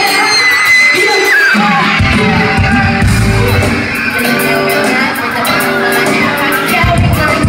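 Loud live band music from a hall's sound system, with electric guitar, bass and drums under a singer at the microphone, and fans in the crowd yelling.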